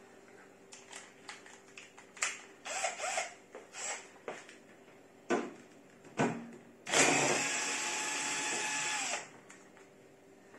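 Clicks and clatter of handling a tool and bit, then an electric drill fitted with a screwdriver bit runs for about two seconds to back out an oven panel screw, its pitch dropping as it stops.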